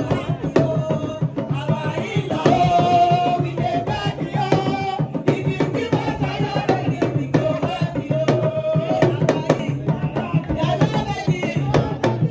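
Music with drums and percussion under a held, singing melody.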